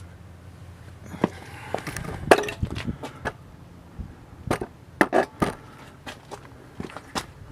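Irregular sharp metal clinks and knocks of hand tools being worked on a pickup truck's wheel hub and brake parts, the loudest clank about two seconds in.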